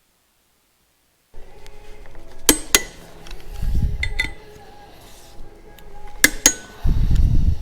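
Silent for about a second, then metal tools and motorcycle parts being handled: sharp metallic clinks, two pairs of them plus a few lighter ones, and two dull low thuds.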